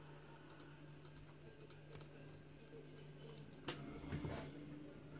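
Faint small clicks and light rattling from handling a gutted pin-tumbler lock cylinder, with one sharper metallic click about three and a half seconds in, over a steady low hum.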